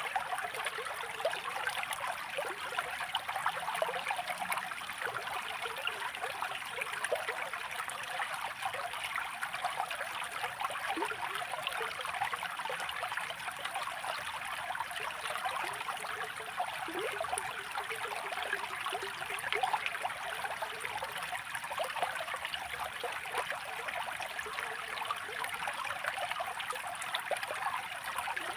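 Running water trickling and babbling steadily, like a small stream: a constant light splashing with many tiny gurgles and little depth to it.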